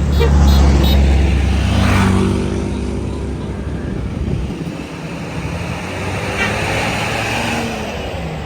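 Tour bus engine running as the bus drives past, a heavy low rumble that is loudest in the first second or so and then eases off.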